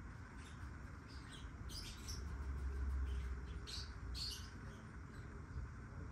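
Black-winged lovebirds (Abyssinian lovebirds) chirping: scattered short high chirps, the loudest in two small clusters around the middle, over a low rumble.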